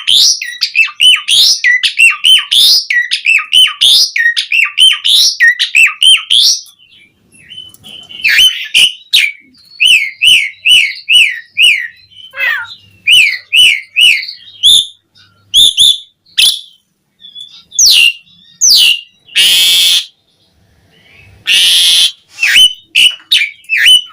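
Asian pied starling (jalak suren) singing vigorously: fast runs of repeated chirping notes, a short lull, then more chirp series, with two long harsh rasping calls about two-thirds of the way through.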